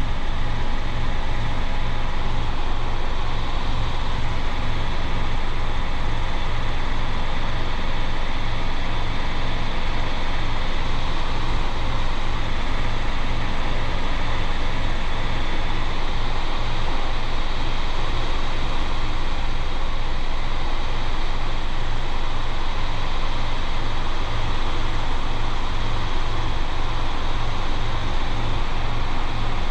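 Robinson R22 helicopter in cruise flight, its piston engine and main rotor running steadily as heard in the cabin: a constant drone with an even low pulsing.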